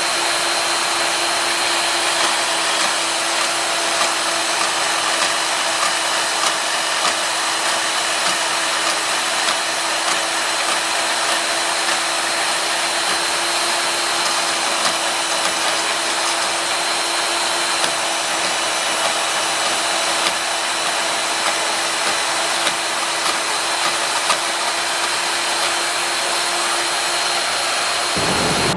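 A motor-driven tool or blower running steadily, a loud even whirring hiss with a thin high whine and a low hum, and faint light ticks scattered through it.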